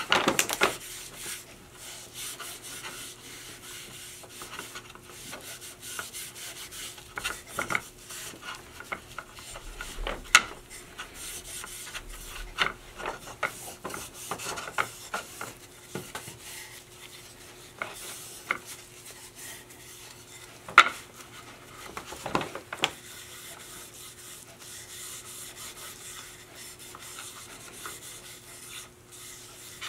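Cloth pad rubbing Danish oil onto walnut boards, a continuous scratchy wiping with a few sharp knocks as the box half is handled, the loudest about two-thirds of the way through. A faint steady hum runs underneath.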